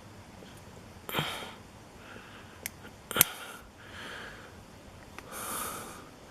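Light handling of a lock and tools being taken apart: two sharp clicks about two seconds apart, with a few soft breaths or sniffs between them.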